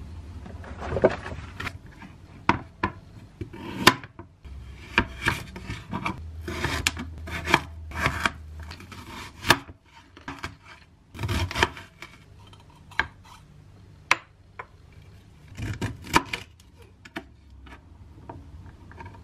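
Kitchen knife chopping onion and broccoli on a cutting board: irregular sharp knocks of the blade hitting the board, some in quick runs, between softer slicing and scraping strokes.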